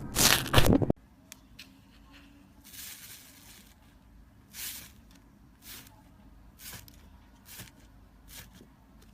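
Slime being handled and squeezed: loud crunchy squishes that cut off abruptly about a second in, then soft sticky squelches roughly once a second.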